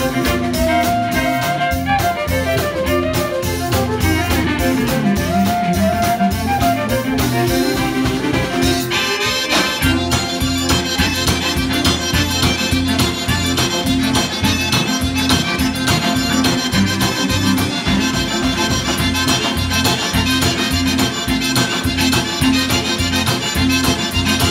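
Live Cajun band playing a two-step: twin fiddles carry the melody over acoustic guitar and a drum kit's steady beat, and about nine seconds in the sound thickens as the Cajun button accordion takes the lead.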